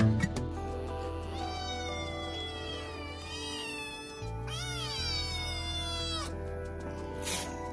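Kittens meowing: two long, high-pitched meows, the second rising then falling, over soft background music.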